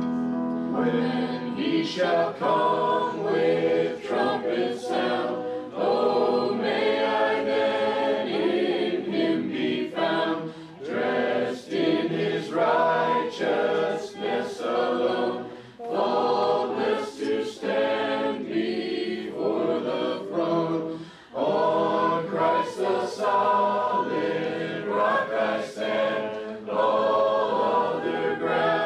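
Church worship team singing a song together, men's and women's voices at microphones, a capella or nearly so.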